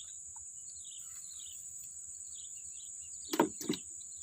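Steady high-pitched insect drone with short high chirps over it. Two sharp knocks about three and a half seconds in, a third of a second apart, are the loudest sounds.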